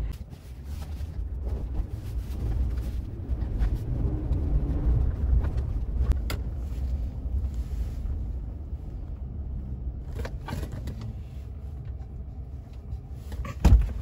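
Low, steady rumble inside a pickup truck's cab, with a few light clicks along the way. Near the end comes a loud clunk as the passenger door is opened.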